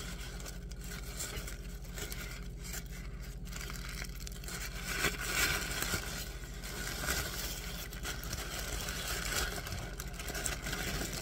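Tissue paper crinkling and rustling as it is pulled apart by hand to unwrap a gift, loudest about five seconds in. A steady low hum runs underneath.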